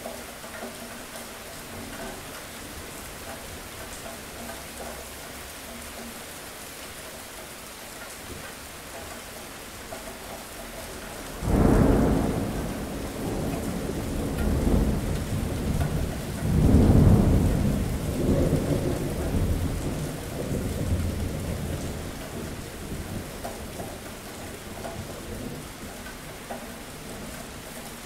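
Steady rain with a thunderclap that breaks in suddenly about twelve seconds in, swells to a second loud peak a few seconds later, and rolls off into a fading rumble.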